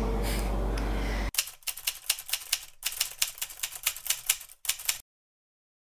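Typewriter key-strike sound effect: a quick run of sharp clicks, several a second, with two brief pauses, that cuts off suddenly about a second before the end. It is preceded by about a second of low room hum.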